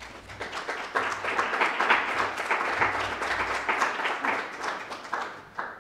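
Audience applauding: many hands clapping together, building within the first second and fading out near the end.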